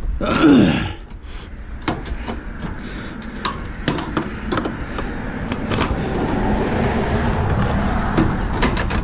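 Metal parts of an appliance being worked by hand while it is taken apart for scrap: a loud creaking scrape in the first second, then scattered clicks and knocks over a rising rustling scrape.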